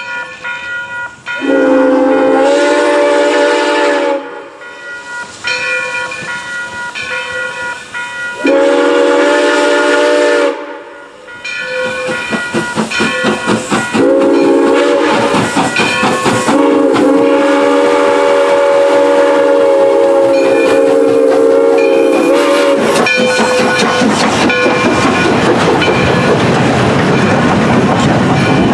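Steam locomotive's chime whistle sounding a series of blasts for a grade crossing, the last about six seconds long, over a ringing crossing bell. The locomotive then passes close with loud exhaust chuffs, followed by the passenger coaches' wheels clacking over the rail joints.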